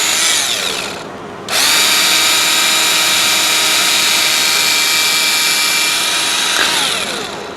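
High-speed power tool with a bit, whining as it enlarges the mounting holes on a replacement turn-signal light so they line up. It winds down right after the start, starts up again about a second and a half in, runs steadily, then winds down near the end.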